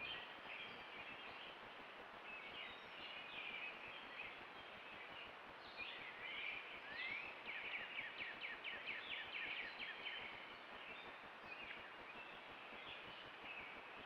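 Songbirds chirping over a steady outdoor hiss, with a quick run of repeated downward-sliding notes about halfway through.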